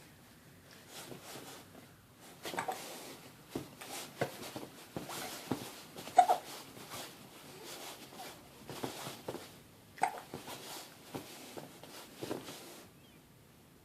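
A three-month-old baby hiccuping: a string of short, sudden hiccups at irregular intervals, the loudest about six seconds in, stopping shortly before the end.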